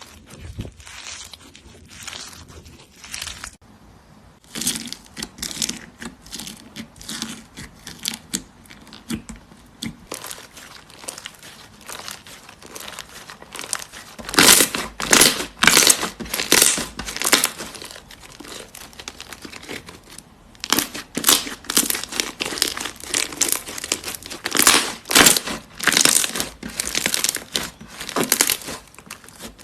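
Crunchy slime being squeezed and pressed by hand: dense runs of small crackles and pops. It is quieter for the first few seconds and loudest in two stretches, one in the middle and one in the second half.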